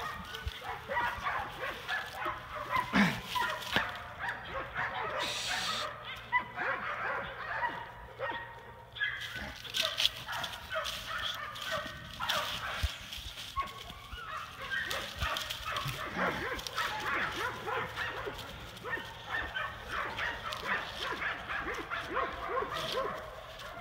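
American bandog mastiff puppy making dog noises throughout while it grips, shakes and tugs a rag bite toy in a tug game, many short pitched sounds one after another.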